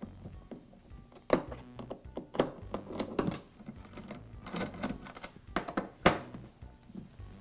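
Steel hex wrench clicking and scraping in the screws of a planer's top cover as the screws are loosened, with several sharp metal clicks, the loudest about a second in and near the end. Soft background music runs underneath.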